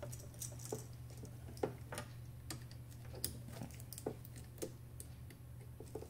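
Irregular light clicks and taps, about a dozen, from gloved hands handling the Hermle Z206A centrifuge's door-lock assembly and its wire connectors, over a steady low hum.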